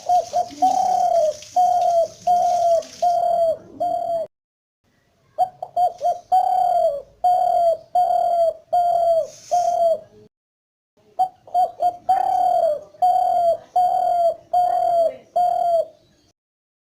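Spotted dove cooing: runs of short, repeated coos, about one and a half a second. The calling is cut into three runs, each broken off abruptly by about a second of dead silence.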